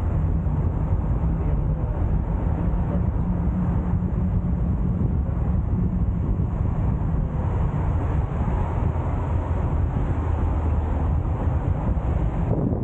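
A car driving at steady speed: a continuous low engine and road rumble, with wind noise on the microphone.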